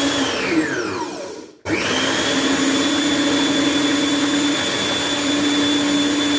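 Kenwood food processor motor blending hummus. It runs briefly and spins down with a falling whine, stops for a moment, then starts again about a second and a half in and runs steadily.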